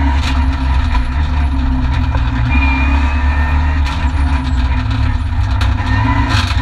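Renault Mégane N4 rally car's turbocharged four-cylinder engine, heard from inside the cabin under hard driving, its pitch stepping up and down with the gear changes. Several sharp clicks and knocks cut through it.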